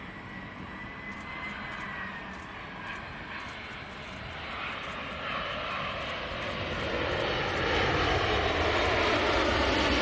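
Airplane engine noise growing steadily louder over the seconds, with a thin high whine wavering in the first couple of seconds.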